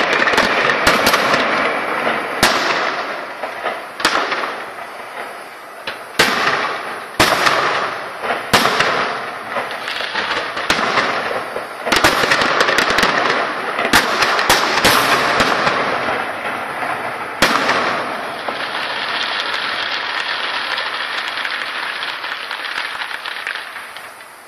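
Fireworks display: aerial shells bursting with sharp bangs every second or two over a continuous crackle of falling stars. The crackle carries on after the last bang and fades out near the end.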